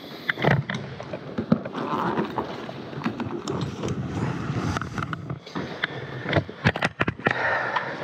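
Handling noises: rustling and scattered clunks and clicks as tools and bags are moved about on a concrete floor, with a quick run of sharp knocks near the end.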